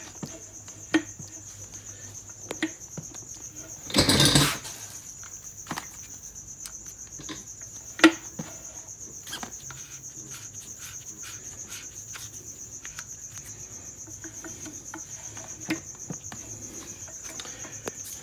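A cricket chirping steadily in a fast, even, high trill, with scattered clicks and knocks of metal parts being handled on the milling head and a louder half-second rattle about four seconds in.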